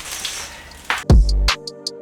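Rustling of packaging, then about a second in a hip-hop beat starts, with deep bass kicks and ticking hi-hats.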